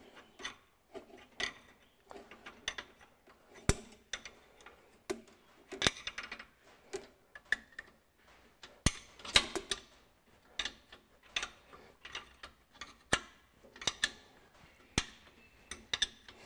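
Irregular metal clicks and clinks, one or two a second with a few quick clusters, of a spanner working a bolt as the split Ferguson TE20's engine and gearbox are drawn back together at the bell housing.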